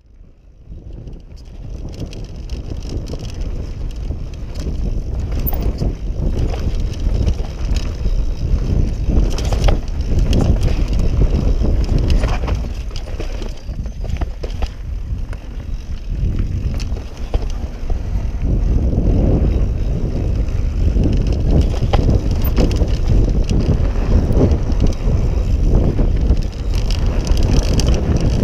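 Yeti SB6 mountain bike riding down a dirt trail: tyres rumbling over the dirt and wind buffeting the camera microphone, with sharp clicks and rattles from the bike over bumps. Fades in from silence at the start.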